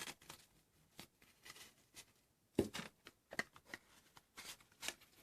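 Faint rustling and small taps of paper and card packaging being handled, with a louder tap about two and a half seconds in.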